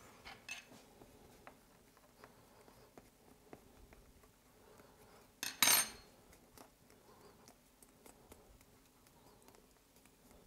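Hands working sugar paste against a wooden cake board: faint scattered taps and clicks, with one sharp double clatter of something hard knocking a little past halfway through.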